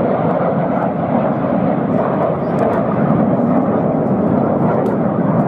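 Steady jet roar of the Red Arrows' BAE Hawk T1 jets flying in close formation.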